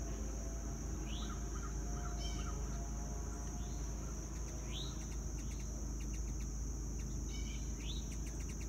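Steady high-pitched drone of insects such as crickets over a low outdoor rumble, with scattered bird chirps and short rising calls about every second or two.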